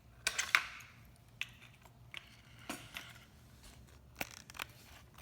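Handling noise from pressure washer fittings and a foam cannon being picked up and moved: scattered clicks and knocks with some rustling, the loudest about half a second in.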